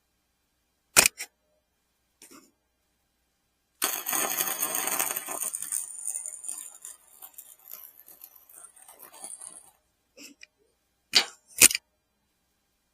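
A welding arc laying a tack weld: a crackling, sizzling stretch about six seconds long that starts abruptly about four seconds in and dies away. It is set between sharp metallic clicks, one about a second in and two near the end.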